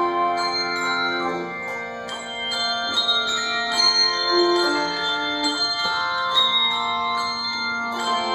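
Handbell choir ringing a piece: several bells struck together and in turn, their notes layering into chords and ringing on with a long sustain.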